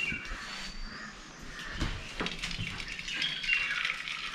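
Hot water being poured from an aluminium cooking pot through a metal strainer into a vessel, with a few clinks of metal first and steady pouring from about three seconds in: the boiled water being strained off.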